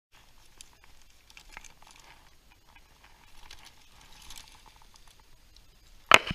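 Faint rustling and crinkling of clothing and gear being handled, with scattered small clicks, then one short, loud burst of noise near the end.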